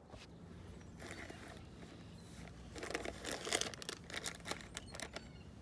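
Crinkling and rustling of a treat packet being handled, with a few sharp clicks. It is faint at first and loudest about three to four and a half seconds in.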